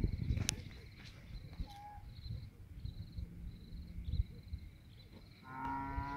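A cow mooing: one long call that starts near the end, over a steady pulsing insect chirp and low rumbling.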